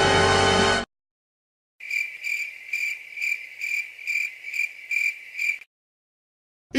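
Cricket chirping sound effect: a high, steady chirp pulsing a little over twice a second for about four seconds, then cutting off suddenly. Just before it, a music clip stops abruptly.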